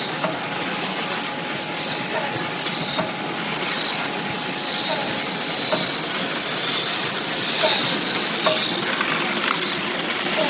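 Multi-lane stick-packing machine running: a steady hiss, with light clicks about once a second from its cycling sealing and cutting action.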